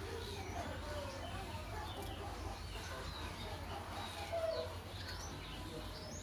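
Sooty-headed bulbul singing a run of short, varied, gliding whistled notes, a song partly copied from an oriental magpie-robin, over a steady low hum.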